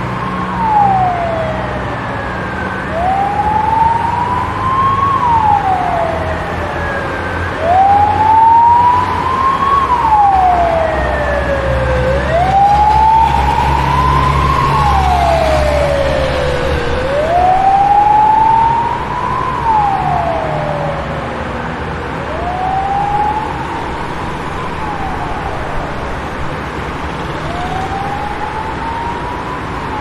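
Fire truck siren wailing: the pitch climbs slowly, falls back a little faster, and repeats about every five seconds. Underneath is a low rumble that swells in the middle and eases off toward the end.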